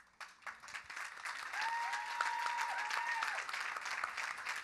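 Audience applause that starts a few tenths of a second in and carries on steadily, with drawn-out whoops from the crowd over it around the middle.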